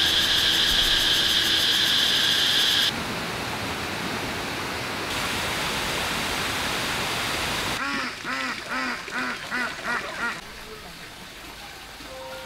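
A loud steady high-pitched buzz for about the first three seconds, then a steady hiss, then ducks quacking in a quick run of calls about eight seconds in. Each sound stops abruptly and the next begins.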